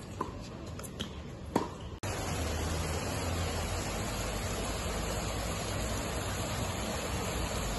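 Two sharp knocks of a tennis ball struck by a racket, then from about two seconds in a steady rush of splashing water from a ground-level jet fountain.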